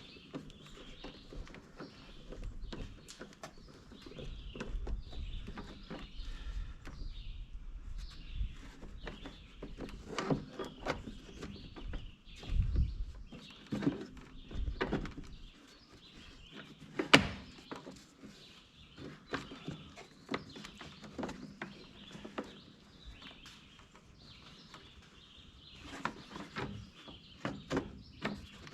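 Scattered clicks, taps and knocks of hand tools and small metal parts while a Craftsman push mower is reassembled and screws are fitted on top. One sharp knock a little past the middle stands out.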